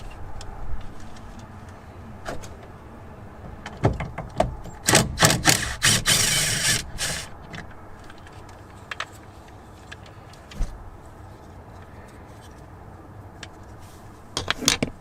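Hand tools and a plastic truck door panel being worked loose while the panel screws come out: scattered clicks and knocks, a dense run of knocks with a brief rattle about five to seven seconds in, and a few more knocks near the end.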